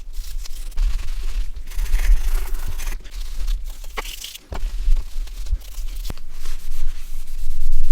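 Scratchy scraping and rustling from scrubbing a dirty mobile-phone part clean by hand, with a few sharp clicks along the way.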